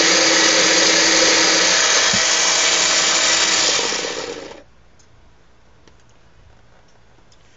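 Windmere mini food chopper motor running steadily as its blade whips raw eggs into a froth, then winding down and stopping about four and a half seconds in. A few faint clicks follow.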